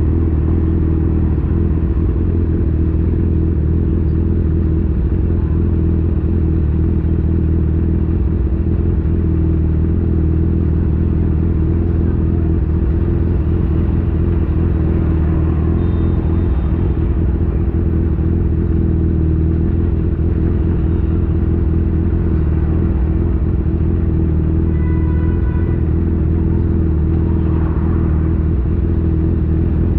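Honda CB1000 motorcycle's inline-four engine idling steadily while standing still in traffic.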